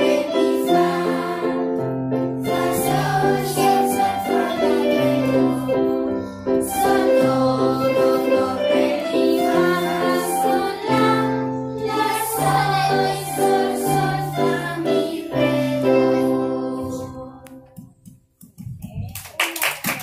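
An ensemble of electronic keyboards playing a piece together, with held bass notes under chords and a melody. The music ends with a fade, and clapping starts near the end.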